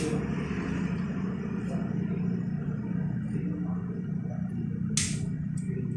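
Steady low background rumble of room noise, with a short sharp clink or scrape about five seconds in, from a spoon on a metal plate.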